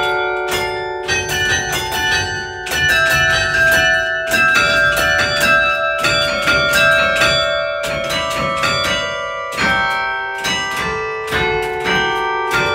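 Church bells ringing, struck several times a second, their tones ringing on and overlapping into one another.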